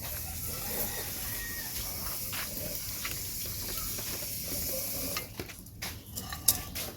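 Steady hissing from cooking oil heating in a pot over a wood fire. A few sharp clicks and one louder crack come near the end.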